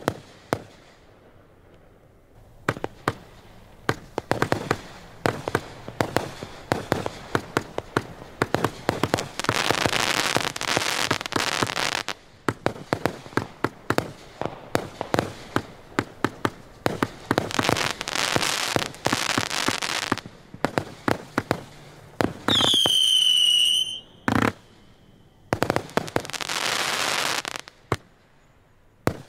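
Fireworks display: a steady barrage of sharp bangs, with several stretches where the shots come so fast they blur together. About two-thirds of the way through, a whistling firework sounds a high whistle for about a second and a half, dipping a little in pitch at first, before another bang.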